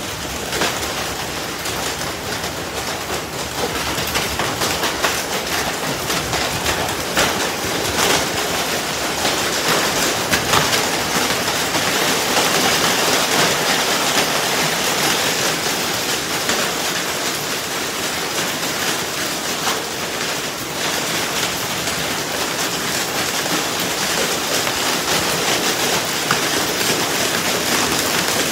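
A hailstorm with heavy rain: a steady, dense hiss of rain peppered with countless sharp ticks of hailstones striking, growing slightly louder a few seconds in.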